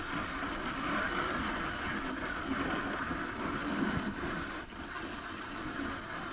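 Dog sled moving over snow: a steady rushing hiss of the runners sliding along the packed snow.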